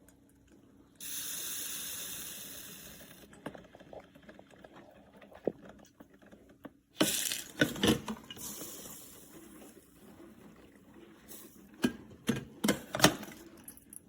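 Spells of hissing, water-like noise; the first starts about a second in and fades away over about two seconds. A few sharp clicks and knocks follow, most of them near the end.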